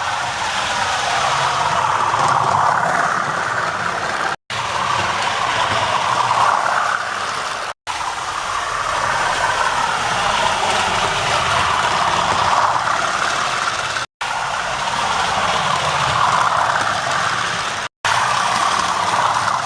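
Diesel engine sound from the Hornby TTS sound decoder in a model Class 97 locomotive, played through its small onboard speaker as the loco runs, with a thin engine note that swells and eases. The sound drops out to silence for an instant four times.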